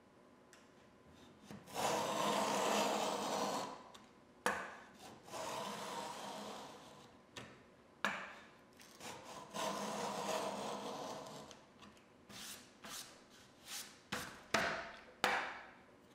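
Router plane shaving the bottom of a groove in a wooden board, its blade scraping through the wood in repeated passes. A few longer strokes come first, then five short quick ones near the end.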